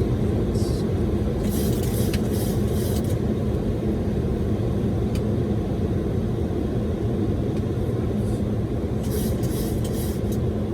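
Steady low rumble of airflow and engines inside a Boeing 737 cockpit on approach, with a few short bursts of hiss about two seconds in and again near the end.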